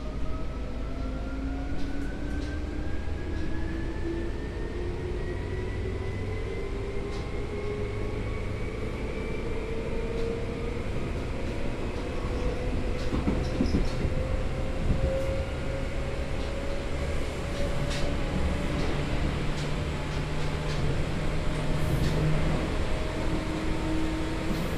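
Seibu 2000 series field-chopper electric train heard from inside a motor car, its traction motors and gears whining in a chord that rises steadily in pitch as the train gathers speed, over wheel and rail rumble with a few light clicks. The motor revs run high for the speed, which the recordist puts down to freshly reprofiled wheels.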